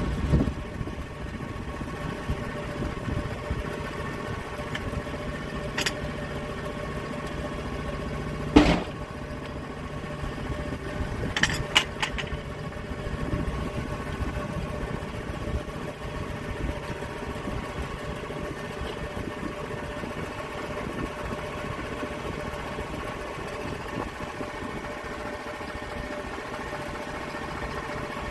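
Sawmill engine running steadily at an even speed, with a few sharp knocks and clicks over it, the loudest about a third of the way in.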